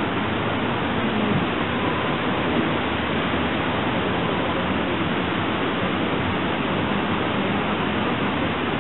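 Steady rushing of the Schuylkill River spilling over a low dam, an even, unbroken wash of water noise with a faint low hum underneath.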